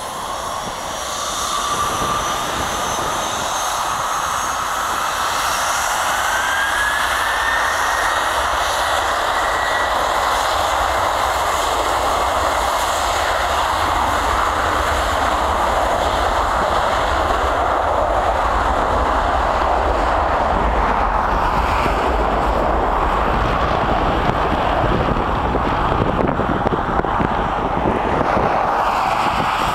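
Boeing 717's two rear-mounted Rolls-Royce BR715 turbofans on the takeoff roll. A whine rises in pitch over the first several seconds as the engines spool up to takeoff thrust, then they run at a steady full-power roar.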